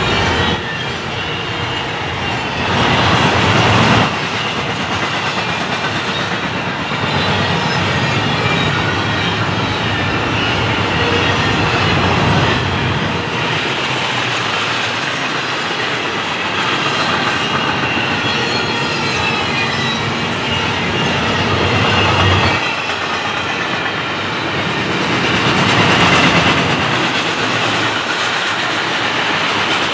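Double-stack container train of well cars rolling past at close range: a steady rumble of steel wheels on the rails. It swells louder about three seconds in and again near the end.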